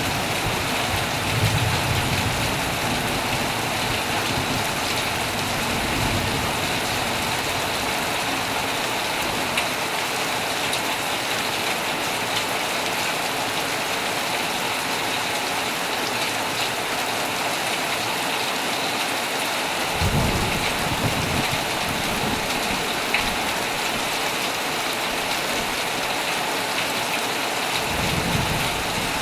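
Heavy rain falling steadily on a tent, with low rolls of thunder near the start, about twenty seconds in, and again near the end.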